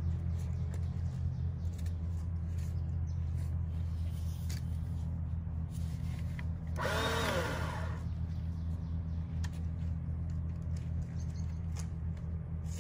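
Ryobi 40V electric pole saw briefly triggered about seven seconds in: the motor and chain spin up and wind straight back down in about a second. A steady low hum runs underneath.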